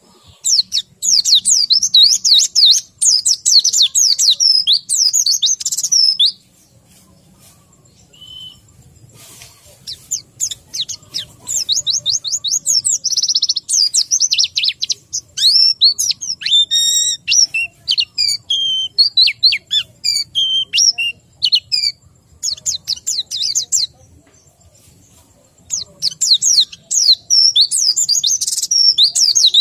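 White-eye (pleci) singing in bursts of fast, high-pitched twittering phrases, with gaps of a few seconds between the bursts. Keepers take this kind of song for a bird lacking breeding drive (kurang birahi) or not singing at full strength (kurang kenceng).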